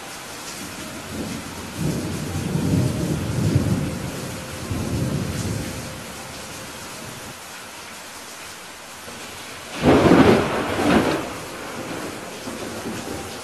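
Thunderstorm: steady rain with a low rolling thunder rumble from about two seconds in lasting several seconds, then a loud, sharp thunderclap about ten seconds in that cracks a second time a moment later.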